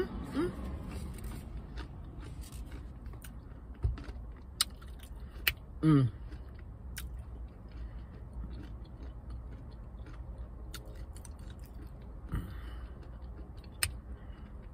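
A person chewing and crunching a mouthful of chips and bean dip, with sharp mouth clicks scattered throughout. There is a short hummed "mm" with falling pitch about six seconds in.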